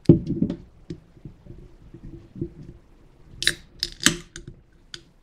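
A 16-ounce aluminium can of Aha sparkling water: a sharp knock as it is handled at the start, a few small clicks, then its pull tab cracking open in two sharp snaps a little past halfway through.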